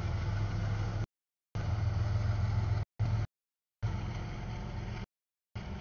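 CSX intermodal freight train rolling past, a steady low rumble. The sound drops out to dead silence four times, for about half a second each.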